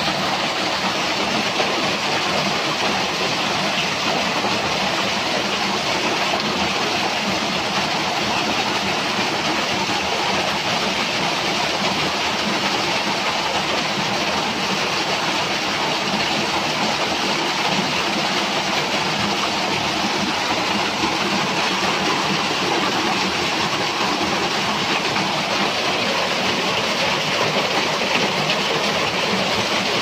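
Small waterfall pouring over a rock ledge into a shallow pool: a steady, even rush of falling and splashing water.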